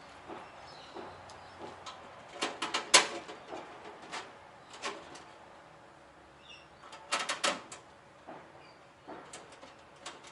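Tools and bolt hardware being handled, giving two quick clusters of clicks and knocks, the first about two and a half seconds in and the second past the middle. A few faint bird chirps in the background.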